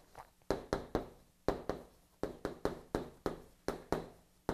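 Chalk tapping and scratching on a chalkboard as short Korean letter strokes are written: a steady run of sharp taps, about four a second, each fading quickly.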